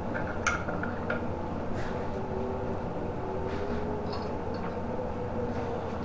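A few light clicks from handling parts at the electric scooter's rear fork in the first second, then only a steady background hum with a faint wavering tone.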